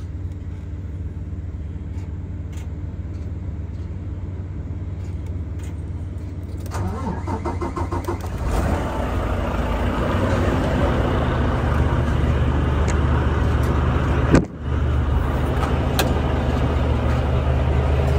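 Semi-truck diesel engine cranked by the starter about seven seconds in, catching and running on at a steady idle, over a low hum that is there from the start. A single sharp knock about fourteen seconds in.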